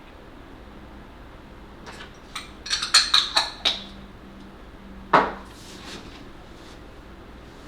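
A quick run of light clinks and knocks, like small hard objects being handled, about two seconds in, then one louder knock a little after five seconds.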